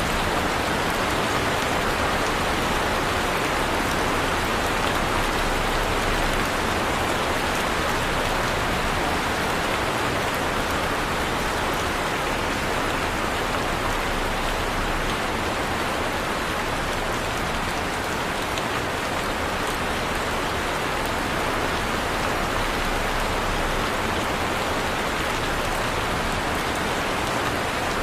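Heavy rain falling steadily, a dense, even hiss of drops pattering on a surface.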